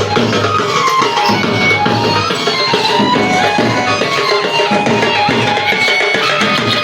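Traditional Indian folk music for Holi: a steady, busy drum rhythm under a high, wavering melody line.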